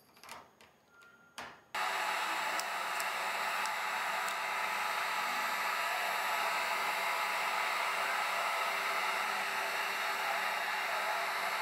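Handheld heat gun switched on suddenly about two seconds in, then running steadily, its fan blowing hot air to shrink a wrap onto a battery cell. A few light handling knocks before it starts.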